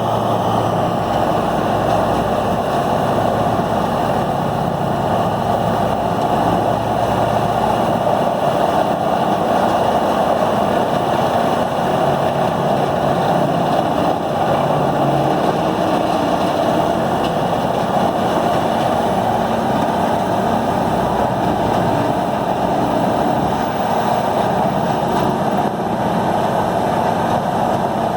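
Peterson 5710D horizontal grinder with its 1125 hp diesel engine running under full load while it grinds: a loud, steady din.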